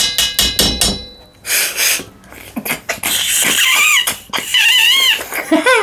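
Loud sucking and slurping as boiled freshwater snails are sucked out of their shells, with squeaky, wavering whistle-like tones in the second half.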